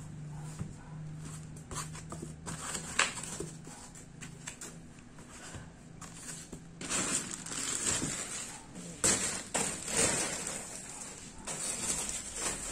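Clear plastic wrapping crinkling and rustling in irregular bursts while packaging is handled, mixed with a few sharp clicks of stiff plastic and cardboard. The crinkling is densest in the second half.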